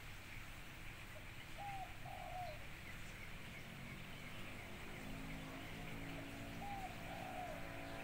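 Spotted dove (tekukur) cooing: two short phrases about five seconds apart, each a brief note followed by a longer one that falls in pitch.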